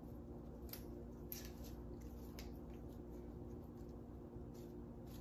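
Faint rustling and soft light clicks of fresh leafy herbs being handled and laid onto a collard-leaf wrap, a handful of scattered touches over a steady low hum.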